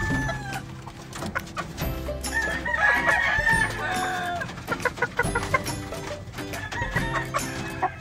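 A rooster crowing, one long crow about two seconds in lasting about two seconds, over background music with a steady beat.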